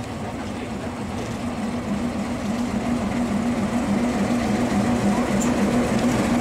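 MaK 450C diesel shunting locomotive running as it pulls a coach slowly up and past, growing steadily louder. Its low engine note wobbles slightly in pitch about twice a second.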